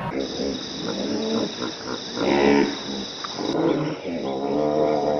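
An animal calling several times in short, pitched calls.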